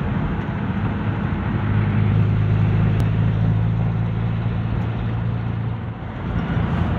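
Engine and road noise of a moving van heard from inside the cabin: a steady low drone that swells a little about two seconds in and dips briefly near the end.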